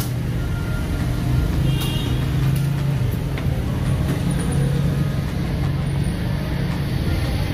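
Steady low rumble of street traffic and engines, with a few short clicks, one about two seconds in.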